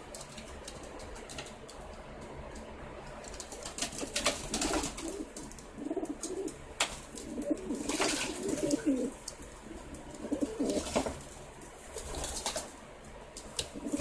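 Racing pigeons bathing in a shallow tub of water: repeated splashing and wing flapping, mixed with low pigeon coos. Quieter for the first few seconds, then the splashing and cooing come in bursts.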